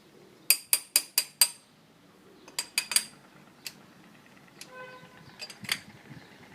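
Sharp metal-on-metal clinks: a quick run of five about half a second in, a group of three a couple of seconds later, then a few scattered taps.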